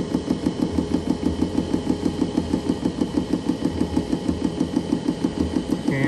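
Diesel air heater's electric fuel dosing pump clicking rapidly and evenly as it primes the fuel line.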